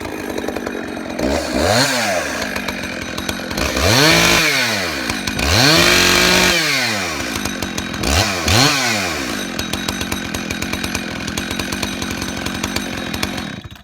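Husqvarna 266XP two-stroke chainsaw running after a quick carburetor clean-out, blipped up to high revs and back down about five times, with one longer rev in the middle, and idling in between. The sound cuts off abruptly near the end.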